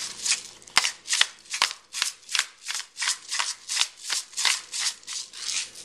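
Hand pepper mill grinding black pepper in a rapid run of short, crisp strokes, about four a second.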